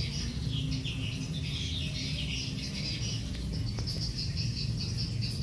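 Small birds chirping and twittering continuously, over a low steady hum.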